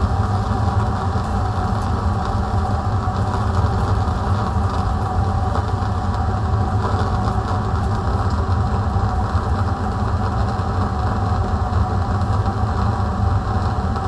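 Fume cupboard extraction fan running alongside a lit Bunsen burner flame: a steady, unchanging low rumble with a hiss on top.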